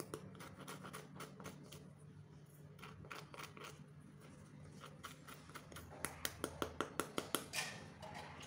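Metal spoon tapping on the crisp fried crust of bhaja puli pastries: scattered light taps, then a quick run of about ten sharp taps in under two seconds near the end, showing how crisp the shell is. A faint steady hum lies underneath.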